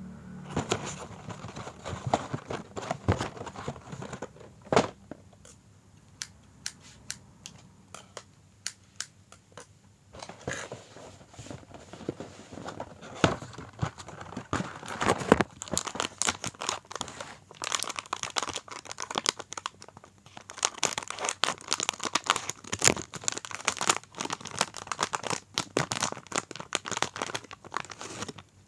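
Plastic snack packet being handled and torn open: dense crinkling and tearing with many sharp crackles, in busy stretches with a quieter spell about a quarter of the way in.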